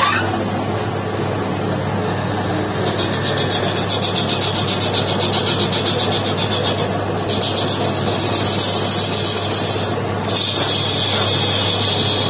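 Metal lathe running with a steady hum, its chuck spinning a small metal part while the cutting tool takes three cuts: a high hiss of metal being turned that starts about three seconds in and breaks off briefly twice.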